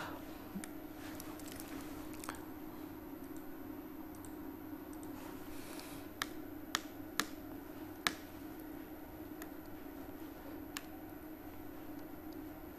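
Computer clicks: four sharp clicks about half a second apart some six to eight seconds in, with a few fainter ones before and after, over a steady low hum.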